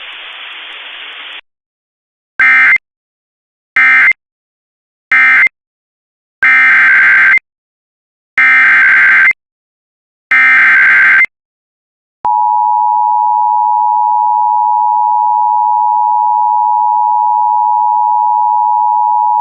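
Emergency Alert System tones: three short data-burst squawks of the end-of-message code, then three longer squawks of the next alert's header code. About twelve seconds in, the steady two-tone attention signal starts.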